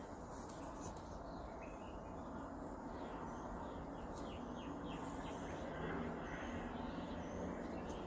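Outdoor ambience: birds chirping in short, high calls over a steady background hiss, with a cluster of chirps in the middle.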